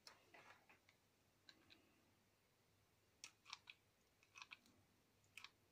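Faint, scattered clicks and small handling noises as a mini hot glue gun is picked up and used to lay glue on card.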